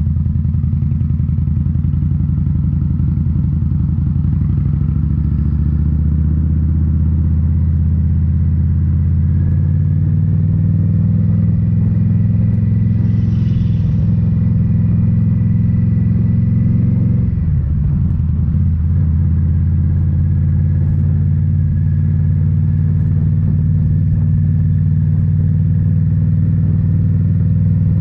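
Indian Scout Bobber's V-twin running through Rinehart slip-on mufflers while riding, a steady deep exhaust note. The note climbs to a higher steady pitch about ten seconds in, drops off briefly around seventeen seconds, then picks back up and holds.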